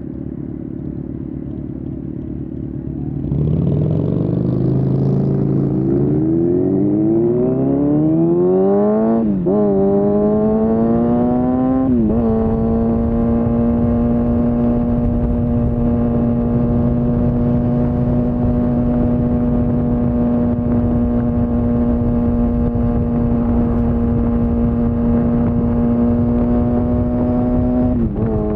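Kawasaki ZX-6R's inline-four engine pulling away: it runs steadily, then about three seconds in it gets louder and revs up, rising in pitch, with quick upshifts at about nine and a half and twelve seconds. It then cruises at a steady pitch, with another shift near the end.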